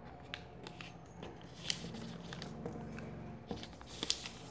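A sheet of paper being folded and creased by hand on a tabletop, giving scattered short crackles and rustles, the sharpest about a third of the way in and again near the end, over a low steady hum.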